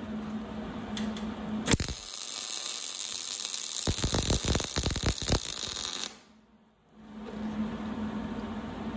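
MIG welder arc crackling and sizzling for about four seconds. It strikes about two seconds in and cuts off suddenly, as a reinforcing bead is laid over the tack welds on a steel angle-iron hitch bracket. A steady electrical hum comes before and after the weld.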